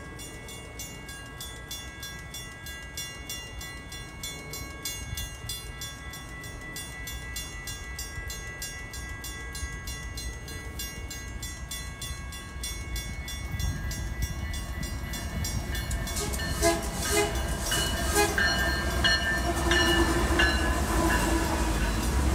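Diesel-hauled double-stack container freight train approaching and passing close by, its rumble growing steadily louder. Its horn sounds in blasts during the last third.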